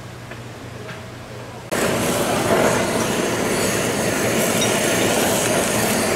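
Cubes of tuna sizzling on a hot griddle: a loud, dense crackling hiss that starts abruptly about two seconds in, after a quieter stretch of kitchen background with a low hum.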